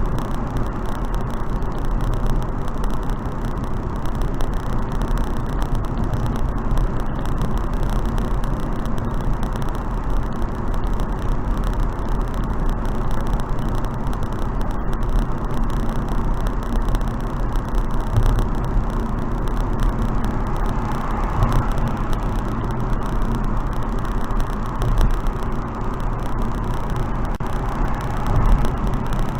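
Steady rush of wind noise from a car driving at expressway speed, low and even with no breaks.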